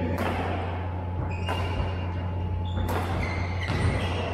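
Badminton rackets striking shuttlecocks on nearby courts: four sharp smacks, echoing in a large indoor hall, over a steady low hum.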